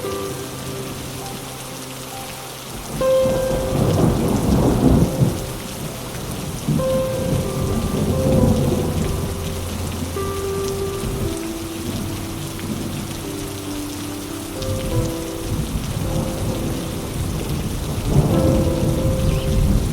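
Rain falling steadily with rolls of thunder, the biggest swells about three to five seconds in and again near the end, under soft music with long held notes.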